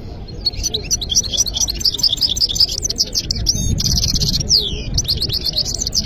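European goldfinch singing: a fast, unbroken twittering song that starts about a third of a second in, with a buzzy trilled stretch and a falling note in its second half, over a low background rumble.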